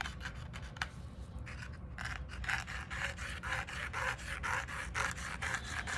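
Repeated rubbing strokes, about two a second, over the drawer's swollen pressboard surface, starting about two seconds in after a single click.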